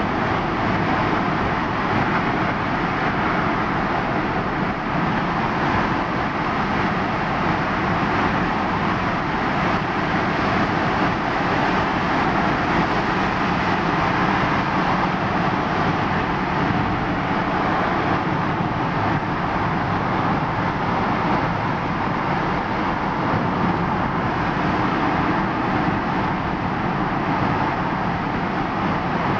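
Steady road and tyre noise with engine hum, heard from inside a car driving through a road tunnel.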